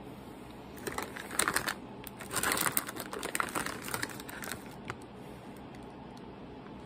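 A small candy wrapper crinkling as it is handled and opened, in irregular crackly bursts, loudest about one and a half seconds in and again between two and three seconds, dying away after about four and a half seconds.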